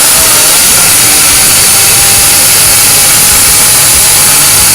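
Countertop blender running at full speed, blending milk, a whole banana and Oreo cookies into a milkshake: a loud, steady whir.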